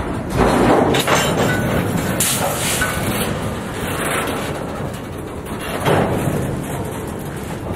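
Freight cars of a train rolling past close by: a steady rumble of steel wheels on rail, broken by loud clanks and knocks every second or two.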